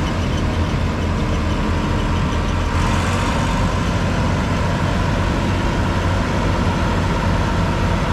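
John Deere 6600 combine running steadily, a loud, even engine drone. From about three seconds in, a denser rushing layer joins the drone.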